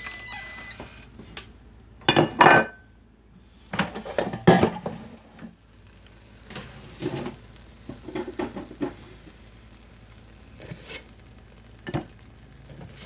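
Clattering of kitchenware: several knocks and clinks as cooked chicken patties are taken out of the air fryer, loudest about two and four seconds in. The air fryer's done-beep ends within the first second.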